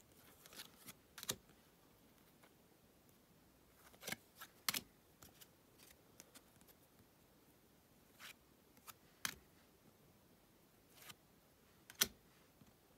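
Topps Bundesliga trading cards being handled and flipped through in the hands: short, crisp flicks and snaps of card against card, coming a few at a time at uneven intervals with quiet between.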